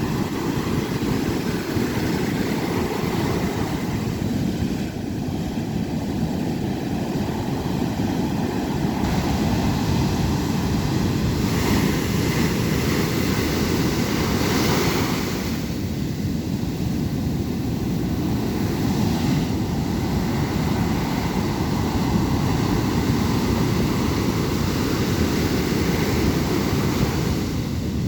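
Ocean surf breaking on the shore: a continuous deep rush of waves, with a hissier surge of a breaking wave about halfway through.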